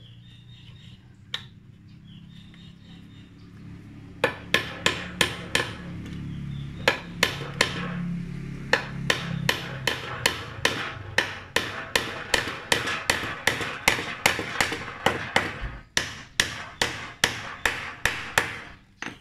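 Hammer blows on a steel rod laid across a wooden block, struck in quick runs of about two to three blows a second with a couple of short pauses, each blow a sharp metallic crack. A low hum runs under the first half.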